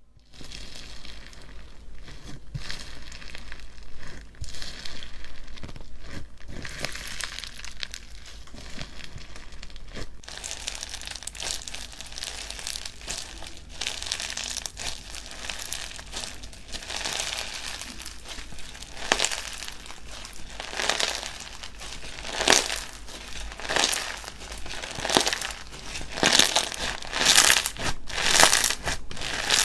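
Hands pressing, squeezing and stretching slime, giving continuous crackling, crinkly pops. In the last third the presses grow louder and come about once a second.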